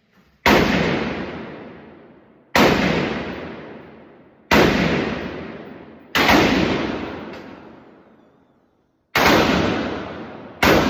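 Six single gunshots from a firearm, spaced unevenly one to three seconds apart. Each shot cracks sharply and trails off slowly over a couple of seconds.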